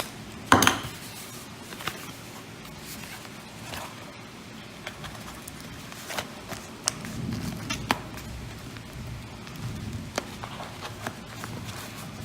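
Silver bullion coins and their packaging being handled: irregular light clicks and taps, with a sharper click about half a second in.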